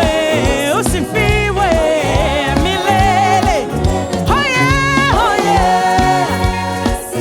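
Gospel worship song: singing over a band with bass and a steady beat.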